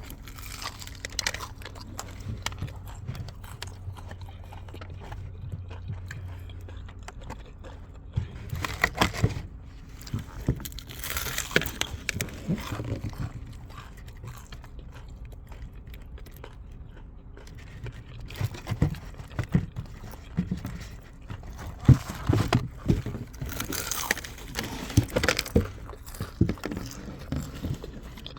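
A person biting into and chewing crispy spicy fried chicken, with crunchy crackling bites in irregular clusters between quieter chewing.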